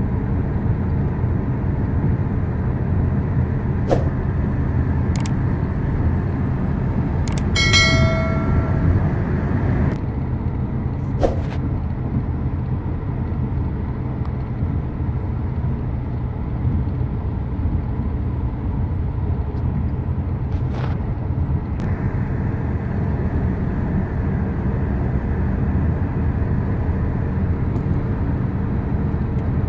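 Steady road and engine rumble heard inside a taxi cruising at highway speed. A few faint clicks sound, and about eight seconds in there is a short, high pitched beep lasting about a second.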